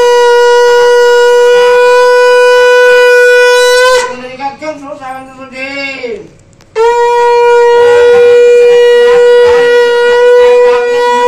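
Conch shell (shankha) blown in two long, steady blasts. The first stops about four seconds in, and after a short break the second starts and holds.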